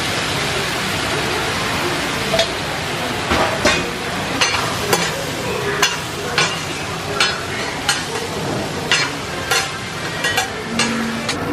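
Okonomiyaki sizzling on a flat iron griddle. From a couple of seconds in, metal spatulas clink and scrape against the griddle about once or twice a second.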